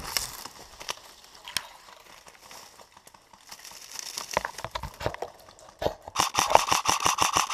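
Dry leaves and palm fronds crunching and rustling as someone pushes into cover. Near the end comes a fast, even string of sharp clicks over a steady whirr, lasting about a second and a half, which fits an airsoft rifle firing a full-auto burst.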